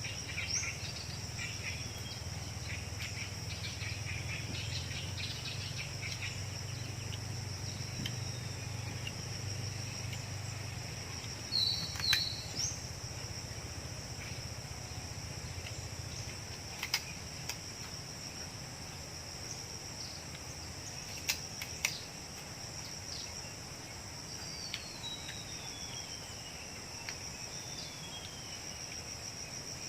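Steady high-pitched chorus of crickets, with scattered bird chirps, two falling whistled bird calls near the end, and a few short sharp clicks.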